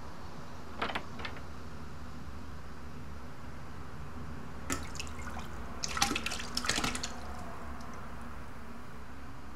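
A door latch clicks twice, then a few seconds later comes a burst of splashing into a toilet bowl as someone vomits, over a steady low hum.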